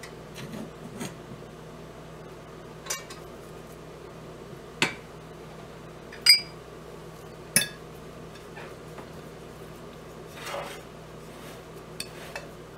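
A steel ladle clinking against a metal pan and a ceramic bowl while cooked mixture is scooped and spread: four sharp clinks a second or two apart, the loudest about six seconds in, then a softer scrape near the end.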